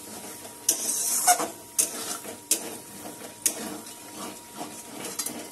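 Metal spatula scraping and knocking against an aluminium kadai, about once a second, while a thick spice paste is stir-fried until the oil has separated.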